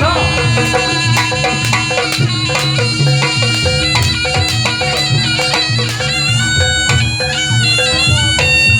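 Barongan accompaniment music: a reedy shawm plays a held, sliding melody over a steady beat of drums and sharp percussion strikes.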